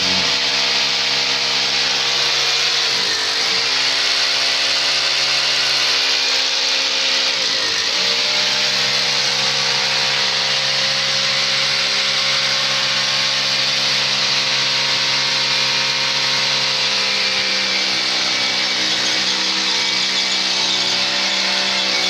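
Electric power drill boring holes, its motor running steadily under load with a high hiss. The motor pitch sags briefly and recovers about three seconds in and again about eight seconds in.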